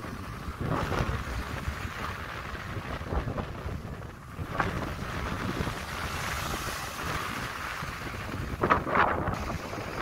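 Wind rumbling on the microphone over small waves breaking and washing up the beach, with swells of surf about a second in, around the middle, and loudest near the end.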